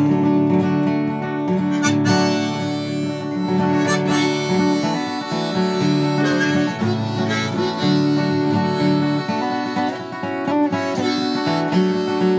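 Harmonica in a neck rack playing the melody in long held notes over an old Washburn acoustic guitar picking the accompaniment.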